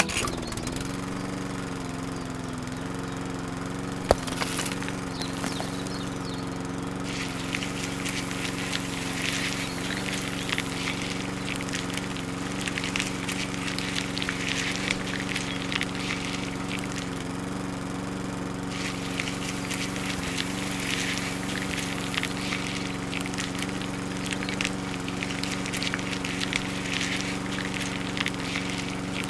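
Small electric motor running at a steady speed, its hum held at several fixed pitches. A rough crackling noise comes and goes over it, and there is one sharp click about four seconds in.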